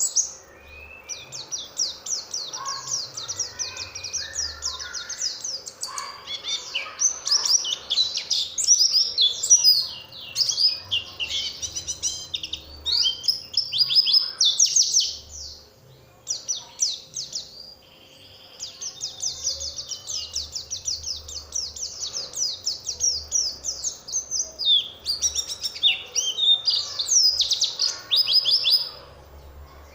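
White-eye (pleci) singing a fast, high, chattering warble of rapid notes, in long runs broken by a short pause around the middle; a lure song meant to provoke other pleci to answer and sing.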